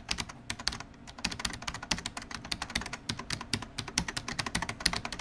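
Computer keyboard typing sound effect: a fast, uneven run of key clicks, several a second.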